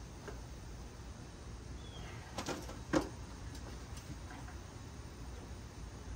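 A few sharp metallic clicks and knocks over a low steady hum, the loudest just before three seconds in, as a wrench slowly turns the 351M's crankshaft backwards by hand.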